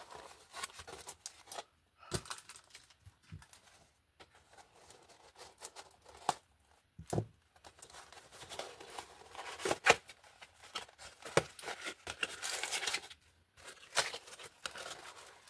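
Thin cardboard box being torn open by hand: irregular ripping of the paperboard flaps with scattered sharp clicks and handling rustle, busiest in the second half, with the loudest click about ten seconds in.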